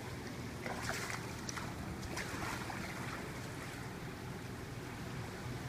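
Shallow floodwater splashing and sloshing in a few short bursts in the first couple of seconds as a storm drain is cleaned out, over a steady low rumble.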